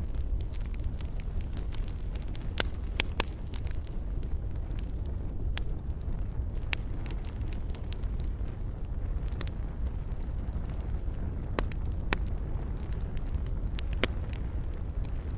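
Fire crackling in a fireplace: a steady low rumble of burning with sharp pops and snaps every second or so, a few of them louder.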